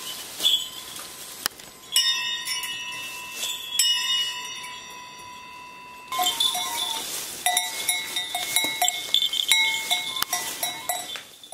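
Metal goat bells ringing. First a few separate strikes that ring on in long, steady tones, then from about six seconds in several bells clank together in quick, irregular strokes.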